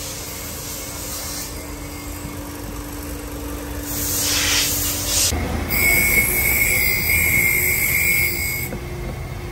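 A short hiss of escaping pressurised gas about four seconds in, followed by a high steady whistle over a low rumble for about three seconds, cutting off near the end.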